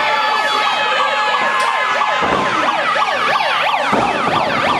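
Several overlapping siren-like wails, each sweeping rapidly up and down in pitch, several sweeps a second.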